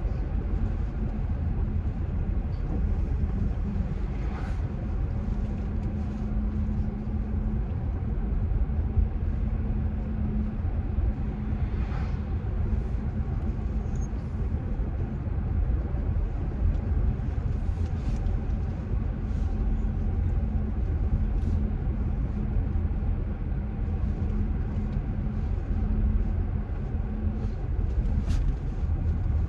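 Steady road and engine noise inside the cabin of a moving car: a low rumble with a steady hum, and a few faint ticks here and there.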